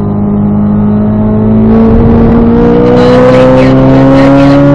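Sports car's V8 engine, heard from inside the cabin, pulling at full throttle in third gear. Its pitch climbs steadily from about a second and a half in as the revs rise toward the shift point.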